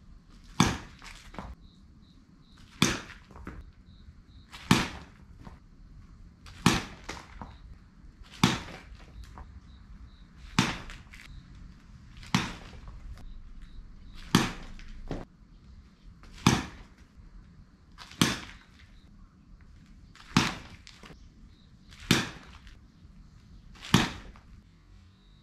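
A youth player's baseball bat hitting softly tossed balls in steady batting practice: thirteen sharp hits, about one every two seconds, some followed shortly by a softer tap.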